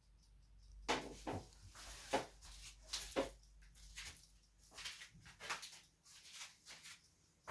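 Footsteps crunching in snow, an irregular run of steps at walking pace starting about a second in.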